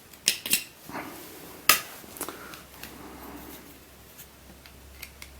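Hard plastic clicks and knocks as the Rubik's UFO puzzle and its plastic stand are handled and the puzzle is set on the stand. The sharpest knock comes a little under two seconds in, then only faint ticks.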